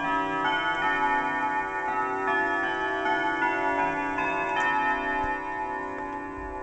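German triple-chime wall clock playing its chime melody: notes struck one after another, each ringing on over the others, the ringing thinning out over the last couple of seconds.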